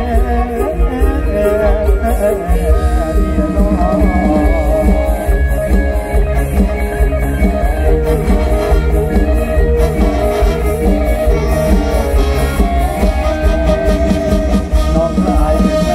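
Mor lam band music: a plucked string melody repeating over a steady, heavy bass beat, with no lyrics sung.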